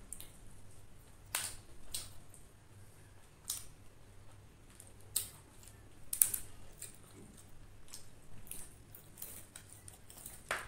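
Close eating sounds: scattered crisp crunches and crackles as lettuce leaves and deep-fried chicken with a corn-flour and oat crust are torn and bitten.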